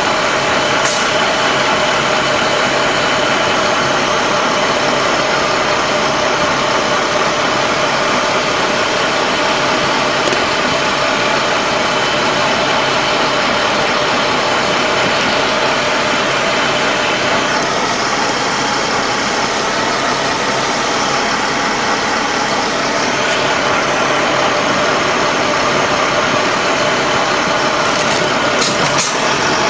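LAV III armoured vehicle's diesel engine running steadily, heard from inside the hull.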